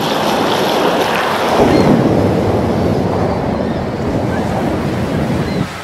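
Water pouring and splashing into a leather hiking boot during washing, a steady rushing splash that is loudest about two seconds in and eases off toward the end.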